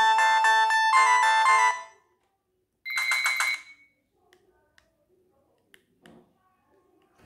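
BenQ-Siemens A38 mobile phone playing a polyphonic ringtone melody through its small loudspeaker, which stops about two seconds in. About a second later a short, fast-pulsing high beep tone sounds for under a second, followed by a few faint clicks.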